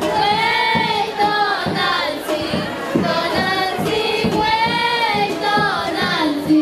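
Music with a high singing voice carrying a melody over a steady beat.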